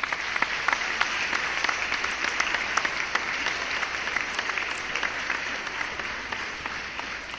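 Applause: a crowd clapping, tailing off toward the end.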